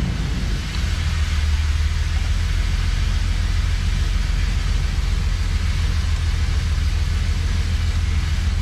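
Car engine idling steadily with a low rumble.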